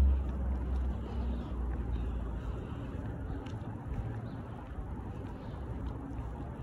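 Outdoor street noise: a low rumble that is loudest at the start and fades over the first second or two, then a steady low background hum with a few faint ticks.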